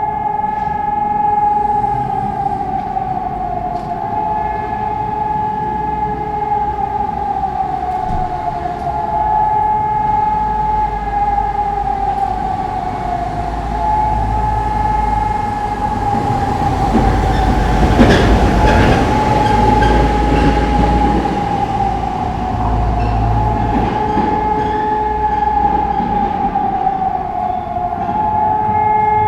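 Electronic civil-defence warning siren sounding a loud, sustained tone whose pitch wavers slightly and slowly. A low rumble, like a passing vehicle, swells through the middle and is loudest about two-thirds of the way in.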